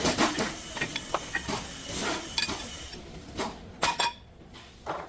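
Irregular light metallic clinks and knocks, a dozen or so short strikes, as of metal objects or tools touching.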